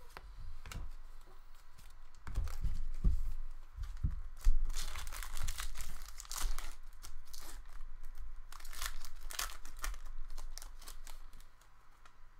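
An Upper Deck MVP hockey card pack wrapper being torn open and crinkled, with a few short knocks of handling before the tearing.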